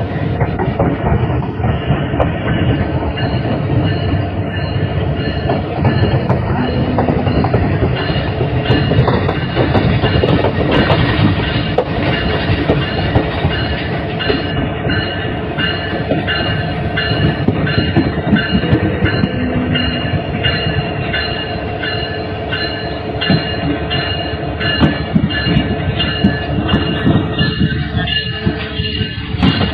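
Diesel locomotive of a train running along the track: a steady rumble with a thin high whine held throughout. From about halfway in, a regular clicking of the wheels over rail joints.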